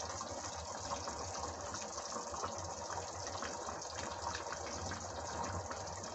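Thin curry broth with green chickpeas and chicken boiling hard in a pot on a gas stove: a steady bubbling with many small pops.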